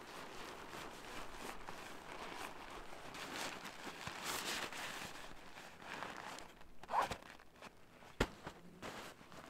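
Nylon fabric rustling and swishing as rolled-up camping gear is handled and packed into its stuff sack, with a short sharp scrape about seven seconds in and a click just after.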